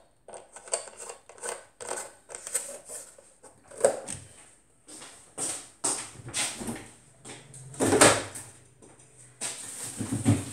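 Kitchen handling noises: a run of irregular knocks and clicks as a juice carton and other items are handled and a fridge is opened, with a louder clatter about eight seconds in. Background music starts near the end.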